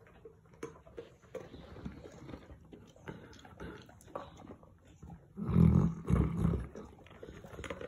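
Boerboels sniffing and eating treats from a treat-dispensing toy on carpet, with small scattered clicks. About five and a half seconds in come two loud, low bursts of heavy sniffing breath as a dog's nose presses against the toy right beside the microphone.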